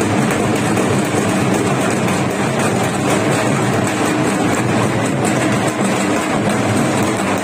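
Drums beaten without a break, mixed with the noise of a large crowd, making one loud, steady din.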